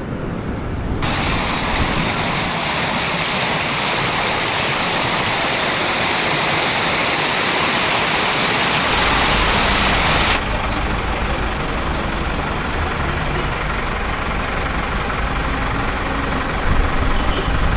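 Water rushing down a stepped cascade fountain: a dense, steady rush that starts abruptly about a second in and cuts off suddenly about ten seconds in, giving way to a quieter steady outdoor noise.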